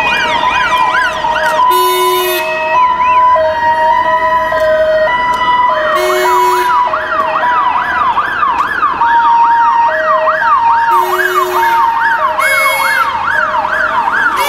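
Several sirens sounding at once: a fast yelping siren, a slower wailing one, and steady stepped notes, with short shrill blasts every few seconds.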